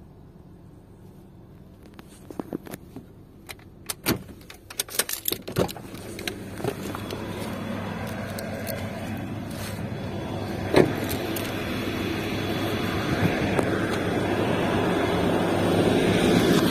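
A run of clicks and knocks as a car door is unlatched and opened, then outdoor traffic noise that grows steadily louder once the door is open, with one sharp knock about eleven seconds in.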